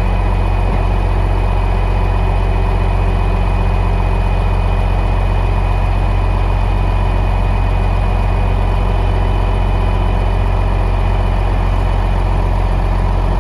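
Dump truck's diesel engine idling steadily while the raised dump bed is lowered.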